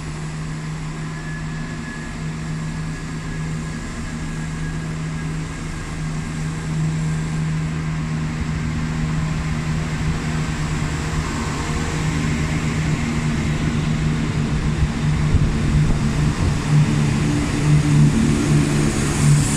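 Class 172 Turbostar diesel multiple unit pulling out of the station, its underfloor diesel engines giving a steady low drone that grows louder toward the end.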